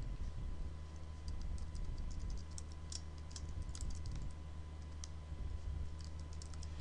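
Computer keyboard keys and mouse buttons clicking: a scattering of light, irregular clicks over a steady low electrical hum.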